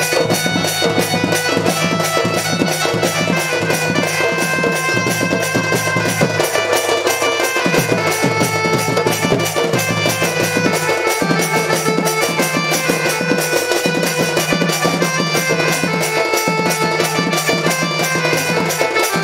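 Sambalpuri folk dance music: a drum keeps a fast, even beat while a reed instrument plays the melody over a steady low drone.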